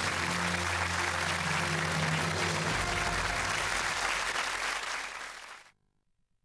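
Studio audience applause over music with long held low notes. It fades and cuts off to silence near the end.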